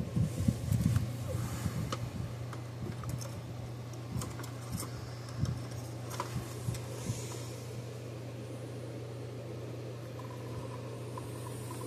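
Small clicks and taps of pliers and a soldering iron working the leads on a circuit board, busiest in the first two seconds, over a steady low hum.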